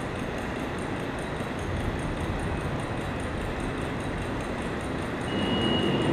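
Steady rumbling noise with a faint regular ticking. It swells about five seconds in, when a brief high steady tone sounds.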